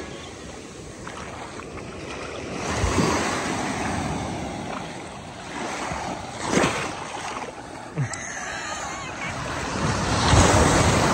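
Baltic Sea waves breaking on the shore, the surf swelling about every three to four seconds, with wind on the microphone.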